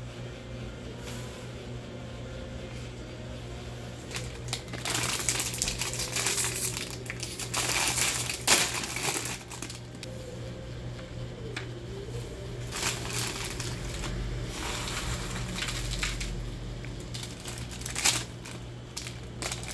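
Plastic instant-ramen packet (Nongshim Gamjamyeon) crinkling and being torn open by hand, in several bursts of rustling that are loudest in the middle, over a steady low hum.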